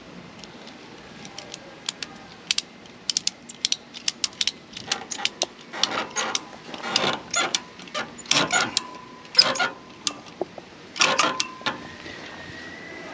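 Ratchet tie-down strap being worked tight on a boat trailer: a run of irregular ratchet clicks that comes thicker and louder from about halfway, then stops shortly before the end.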